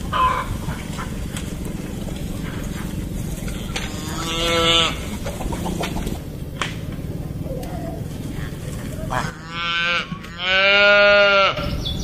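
Calves bawling: one short call about four seconds in, then two more close together near the end, the last one the longest and loudest.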